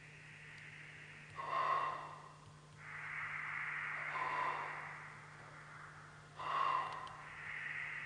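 Flute played with breathy air sounds: separate rushing blows with a faint pitch in them, the longest lasting about two seconds. A steady low hum runs underneath.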